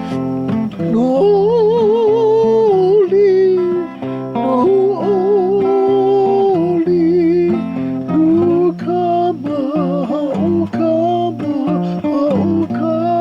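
A hymn sung with a wide vibrato over acoustic guitar accompaniment.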